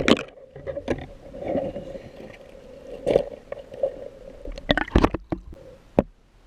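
Water splashing and gurgling around the camera during a river dive, with irregular sharp knocks, the loudest a cluster about five seconds in, over a faint steady hum.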